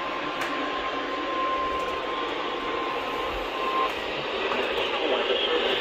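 NOAA Weather Radio warning alarm tone, a steady single pitch, heard through heavy static from a weak radio signal. It drops out briefly about three seconds in and stops near four seconds, leaving only hiss: the tone is the signal that a warning message follows.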